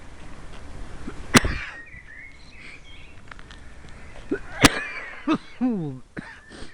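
A person coughing: two sharp coughs about three seconds apart, followed by a few shorter throaty sounds.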